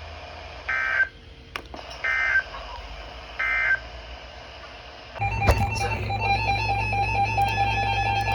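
Three short screechy digital data bursts about a second apart: the Emergency Alert System end-of-message code that closes a broadcast warning. About five seconds in, music with guitar starts.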